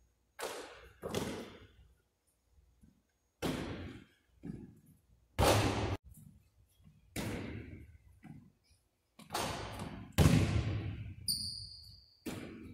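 Basketball thudding on the hardwood floor during shooting practice, about eight heavy hits with smaller bounces between, each echoing around a large gym. A brief high sneaker squeak near the end.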